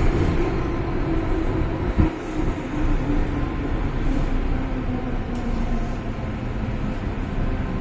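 Hong Kong MTR M-Train running through a tunnel, heard from inside the car: a steady rumble of wheels and running gear with a motor whine that slowly falls in pitch, and a single sharp knock about two seconds in.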